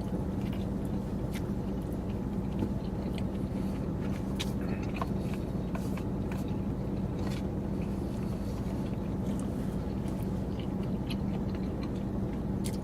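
Close-up chewing and eating, with scattered small clicks and scrapes, over a steady low hum inside a car.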